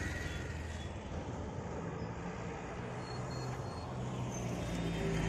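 Outdoor traffic ambience: a vehicle engine running as a steady low hum under road noise.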